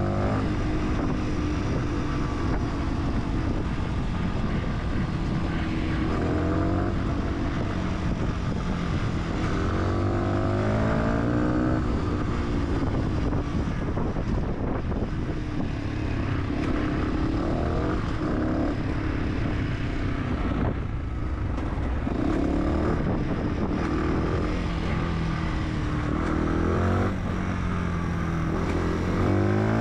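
Fantic 125cc supermoto motorcycle engine under way, its pitch rising again and again as it accelerates through the gears and falling off between shifts and when the throttle is closed.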